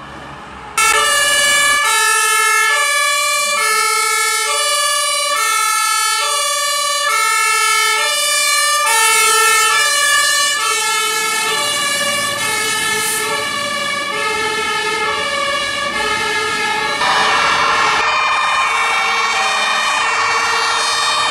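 Fire truck's two-tone air horn (Martin-type horn) sounding its hi-lo call, switching between two pitches about every 0.7 seconds. It starts suddenly about a second in. Near the end a louder rushing sound joins it.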